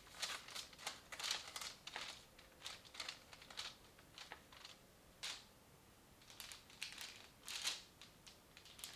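Faint, irregular rustling and crinkling of something being handled by hand, in about a dozen short bursts.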